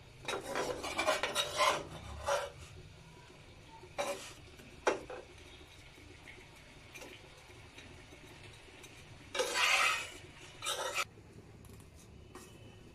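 Metal spatula scraping and rubbing against a stone-coated non-stick frying pan in several bouts: a burst in the first two seconds, single scrapes around two, four and five seconds in, and another burst about nine and a half seconds in.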